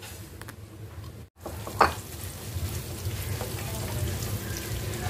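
Whole spices (cumin, nigella, fennel, fenugreek and mustard seeds) sizzling in hot oil in a non-stick pan as they are tempered, stirred with a wooden spoon. The sound breaks off briefly just after a second in, then the sizzling runs on steadily, with one sharp tap a little later.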